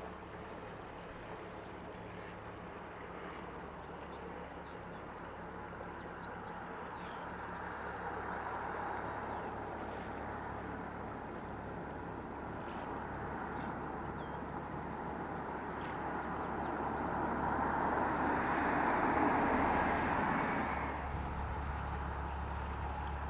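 Motor boat passing with a steady engine hum and rushing wash; it grows louder to a peak near the end, then falls away suddenly.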